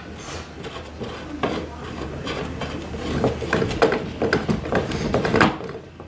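Half-inch pin-type hardline connector being screwed by hand into the metal port of a cable TV line extender housing: irregular scraping and clicking of the threads and the turning grip. It grows busier about a second and a half in and eases off shortly before the end.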